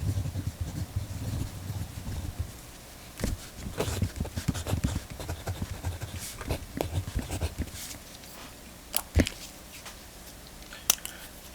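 Pentel GraphGear 1000 mechanical pencil with 0.7 mm lead writing on paper: a run of short scratchy strokes and taps, with low thumps of handling on the desk at first. A few sharp clicks come near the end.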